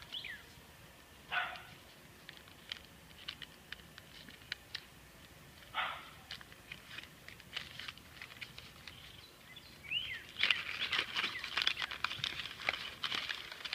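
Light clicks and handling noises of an object and its packaging, then from about ten seconds in a dense, steady crinkling rustle of wrapping.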